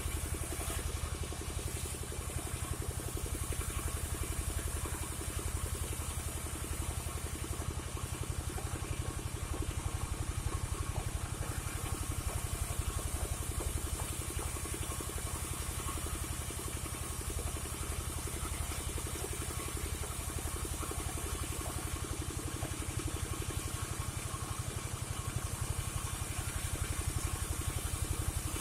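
Engine of a portable sawmill running steadily with a fast, even low throb.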